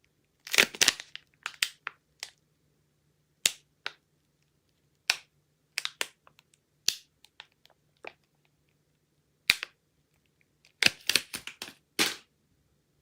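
Soap packaging being handled and opened: sharp, irregular crackles and crunches of wrapping, with a quick cluster of them near the end.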